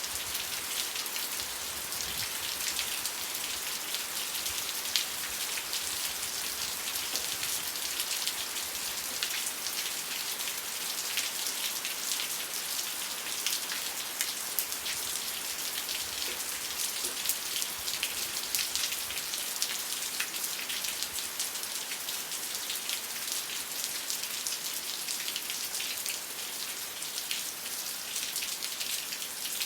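Steady rain falling on a surface, a dense patter of many drops with a continuous hiss.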